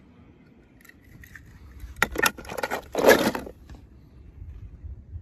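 Small hard objects clattering and scraping, with two louder rasping scrapes about two and three seconds in.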